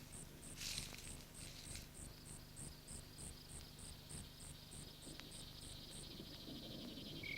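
Insects chirping in a swamp ambience: a high chirp repeats evenly about three times a second, and a second, faster trill joins about two seconds in.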